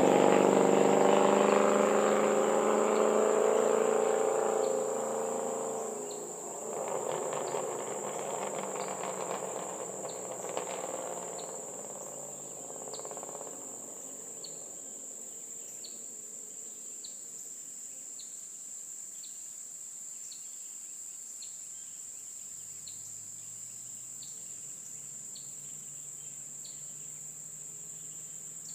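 A car's exhaust dying away into the distance after a pass, swelling briefly once more about seven seconds in before fading out. Left behind is a steady high-pitched drone of insects with faint chirps about once a second.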